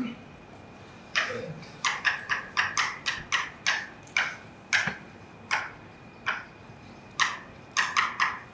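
Writing on a board: about twenty short, sharp strokes and taps in irregular clusters as a line of text is written.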